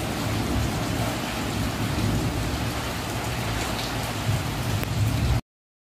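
Heavy rain pouring steadily onto corrugated metal roofs and a waterlogged courtyard, with a low rumble beneath the hiss. The sound cuts off abruptly near the end.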